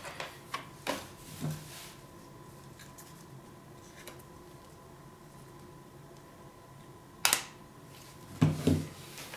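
A Sony RX100 IV compact camera being handled: small clicks and knocks of plastic and metal as it is picked up, then a quiet stretch, one sharp click about seven seconds in and two more shortly after.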